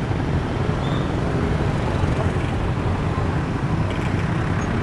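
Steady street traffic noise: a continuous low rumble of passing vehicles, with no single event standing out.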